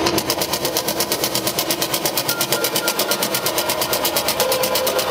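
Live electronic dance music at club volume: a fast, steady ticking pattern over a pulsing beat, about four pulses a second. A short held synth tone sounds in the middle and a lower held tone comes in near the end.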